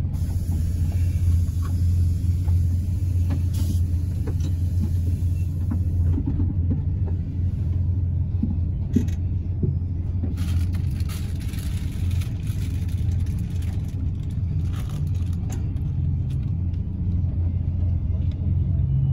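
Steady low engine and road rumble heard from inside a bus cabin as it moves slowly.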